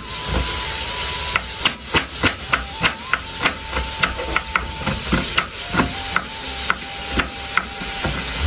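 Kitchen knife slicing onion on a wooden chopping board, the blade knocking on the board about three times a second.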